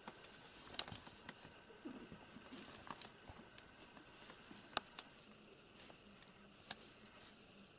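Faint, scattered light taps and paper rustles as a kitten and a cat scuffle and play on spread newspaper.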